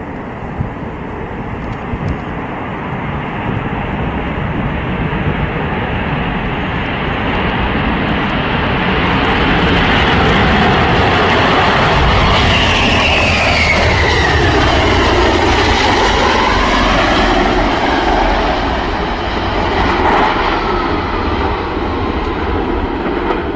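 Jet engines of a large swing-wing military jet running loud at high power during an aborted takeoff run off the runway. The roar swells about a third of the way in, and midway an engine whine falls and then rises in pitch.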